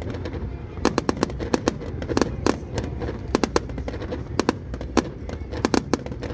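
Fireworks bursting overhead: an uneven string of sharp cracks, often several a second in quick clusters, over a steady low rumble.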